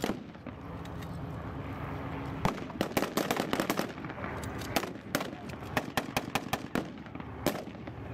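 Rifles and machine guns firing blanks in irregular single shots and short quick strings, starting about two and a half seconds in, over a steady rumble.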